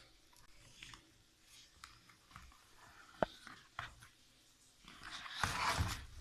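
Handling noise from unboxing a power bank: a few light clicks and taps, one sharper click about three seconds in, then a short rustle or scrape of packaging near the end.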